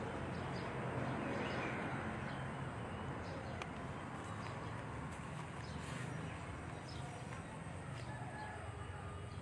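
Faint outdoor ambience with bird calls and a few soft clicks and sips as a cow drinks from a large clay water jar.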